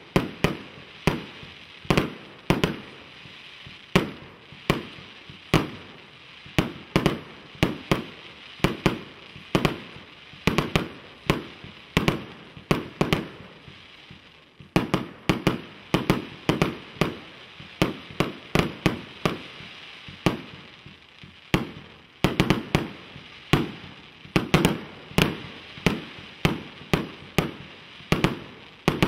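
Firework cake firing shot after shot, a little over one report a second and quickening into denser flurries about halfway and again toward the end, with a steady crackle of burning stars between the shots.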